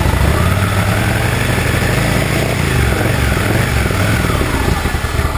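Motorcycle V-twin engine idling steadily with a low rumble.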